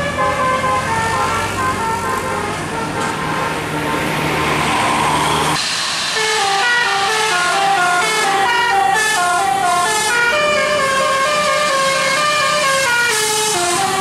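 Indonesian Basuri 'telolet' musical bus air horn playing a quick melody of short notes that step up and down. A bus engine runs low underneath and stops abruptly about five and a half seconds in, while the horn tune carries on.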